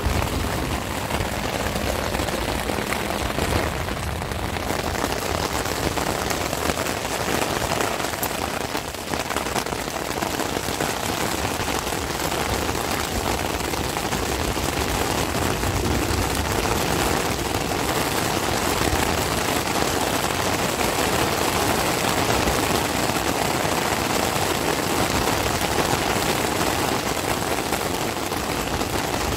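Heavy rain falling on the fabric of a tent, heard from inside as a steady, dense patter, with a low rumble swelling now and then underneath.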